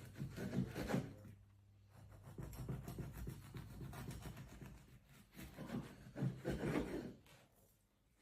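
A knife sawing through a dense homemade loaf of bread, in three bouts of rasping strokes with short pauses between.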